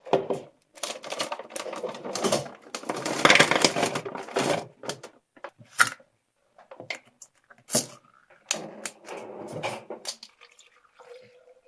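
Irregular clattering and clicking of objects being handled, with a denser rattling stretch about three seconds in and scattered single clacks afterwards.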